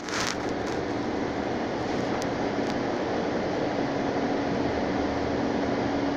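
Steady cabin noise of a passenger vehicle, an even rumble and hiss with a steady hum underneath. A brief rustle comes right at the start.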